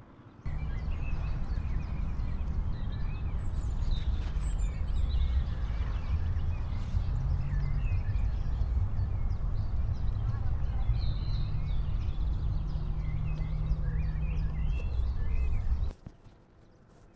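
Outdoor ambience on a windy hillside: a steady low rumble of wind on the microphone, with scattered short bird chirps over it. It cuts off abruptly near the end.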